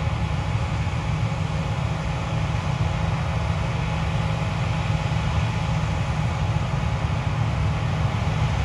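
John Deere combine harvester running steadily while harvesting canola: an even, low mechanical rumble with faint steady tones above it.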